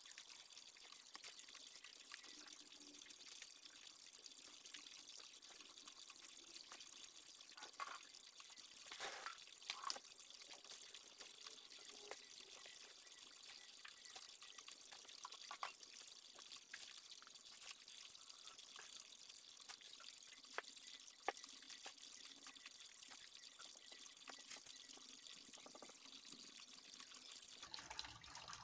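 Faint, steady trickle and drip of water from a small garden pond, with a few brief soft clicks scattered through.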